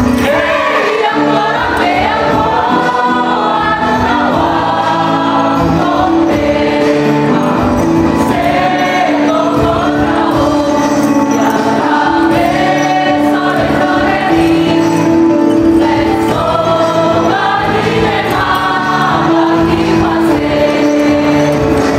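A choir singing a song together, the voices moving over steady held lower notes.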